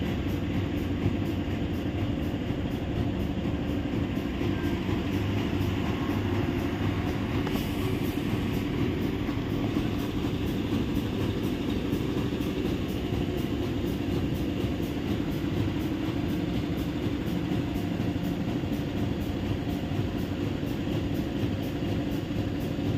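Hitachi EX5500-5 mining excavator running, a steady, unbroken mechanical noise with a heavy low drone.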